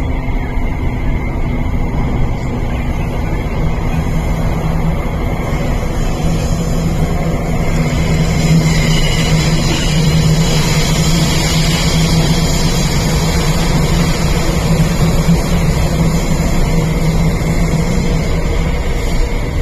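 Tuen Ma line IKK-Train electric multiple unit running, heard from inside the car: a continuous rumble of wheels on rail with a steady high tone. A low steady hum comes in about four seconds in and fades near the end.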